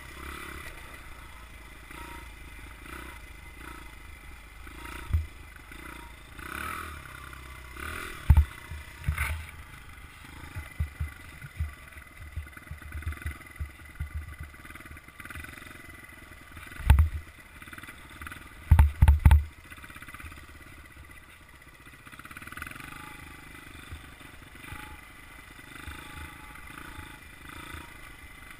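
Honda CRF100F's small air-cooled single-cylinder four-stroke engine running steadily as the dirt bike rides along. Several sharp low thumps break through, the loudest about eight seconds in and a cluster about two-thirds of the way through.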